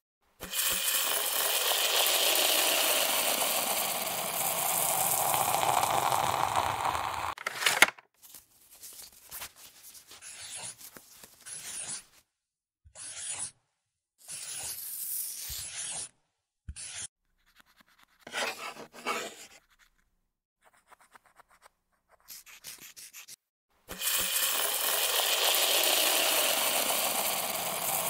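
A pen rubbing and scratching on paper as lines are drawn and areas coloured in. It runs steadily for the first several seconds and again near the end, and in between it comes in short stretches that cut off abruptly, with silent gaps.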